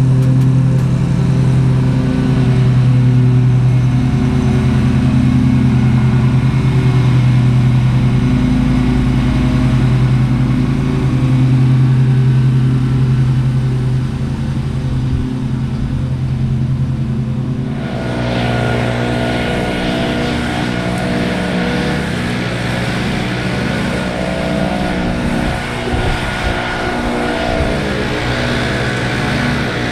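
Small petrol engines of lawn equipment running steadily with a strong low hum. About two-thirds of the way through, a backpack leaf blower comes in, adding a rushing hiss and a higher whine over the engine hum.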